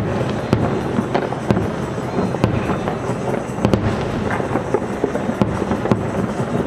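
Aerial firework shells bursting at a public display: an irregular run of sharp bangs over a continuous low rumble.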